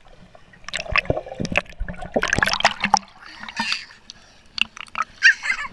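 Pool water splashing and gurgling around a waterproof action camera as it moves under and back above the surface, in irregular splashes.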